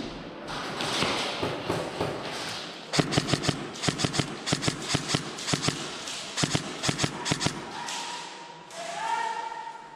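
Airsoft guns firing single shots, a quick irregular string of sharp cracks about five a second for some five seconds, after a few seconds of rustling movement.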